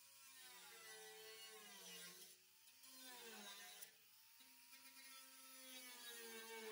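Small pneumatic cut-off tool whining as it cuts through the steel floor of a pickup bed. Its pitch sags and picks back up, with a brief break about four seconds in.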